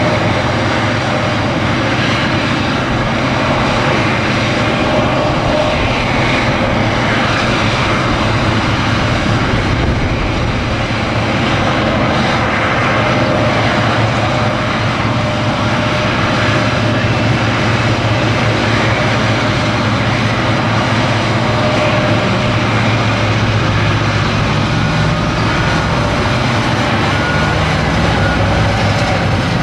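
Komatsu 930E haul truck's diesel engine running steadily as the truck raises its dump body, with a track-type dozer working alongside.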